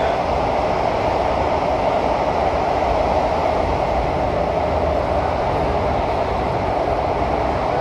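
Steady running noise heard inside a CT251 metro train carriage under way: an even rush and low rumble from wheels and running gear, with no clear rhythm and no change in level.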